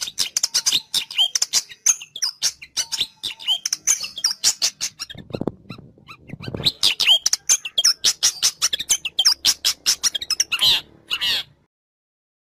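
Long-tailed shrike (cendet) calling as a bird-trapping lure: a rapid, busy stream of sharp high chirps and scolding notes, with two lower, harsher calls in the middle. It stops abruptly near the end.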